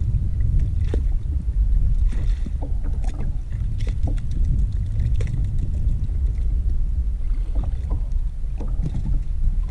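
Wind buffeting the microphone as a steady low rumble, with scattered light clicks and knocks.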